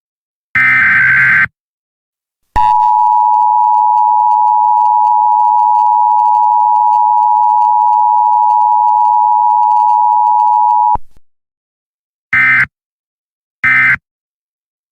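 Emergency Alert System SAME tones. A second-long burst of the SAME data signal is followed by the two-tone EAS attention signal, held steady for about eight seconds and cut off sharply. Two short data bursts come near the end, about a second and a half apart: the end-of-message code.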